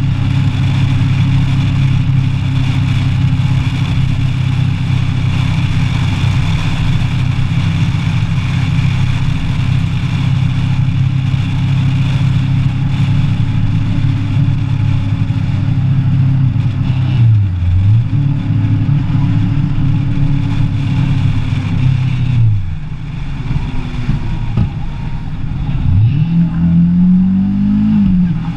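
Kawasaki ER-6n's parallel-twin engine running at steady revs under wind noise. Past halfway the revs dip and pick up again with a gear change, then fall away as the throttle closes, and near the end the engine revs up sharply with another quick upshift.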